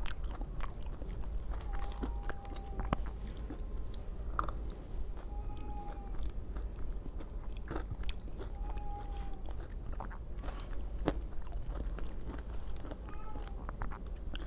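A person chewing and biting into aloo tikki close to the microphone, with many small wet mouth clicks and crunches scattered throughout.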